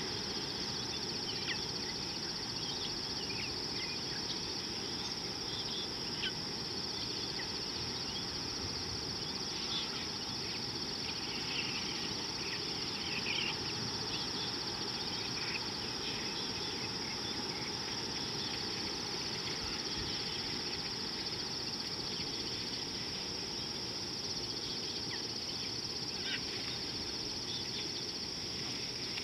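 Steady high-pitched drone of an insect chorus, with short chirps scattered through it and a low even rumble underneath.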